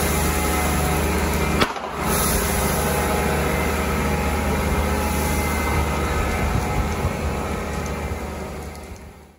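Steady drone of a fire engine's motor and pump running to feed the hose on a burning car, with the hiss of the water jet over it. A single sharp pop sounds about a second and a half in, and the sound fades out near the end.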